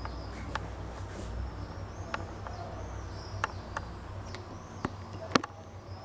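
Birds chirping: a string of short, high, arched chirps repeating every second or so. Several sharp clicks cut in, the loudest about five seconds in, over a low hum that fades out a little past the middle.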